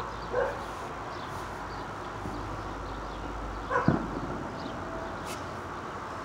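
A dog barking: a short bark about half a second in and a louder one near four seconds in, over a steady background hiss.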